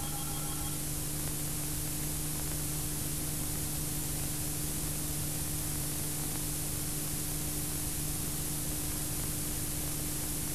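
Steady hiss with a low electrical hum underneath, the background noise of an old VHS tape recording with no programme sound on it.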